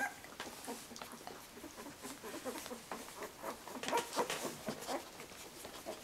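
Litter of newborn puppies, about two weeks old with eyes still closed, giving faint squeaks and shuffling about as they crowd in to nurse.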